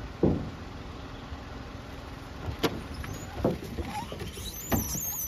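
Car engine running with a steady low rumble, broken by several dull thuds, and a brief high squeaky chirping near the end.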